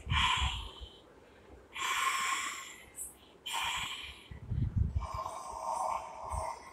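ASMR mouth and breath sounds played through a television speaker: a few short breathy puffs close to a microphone, then softer sounds.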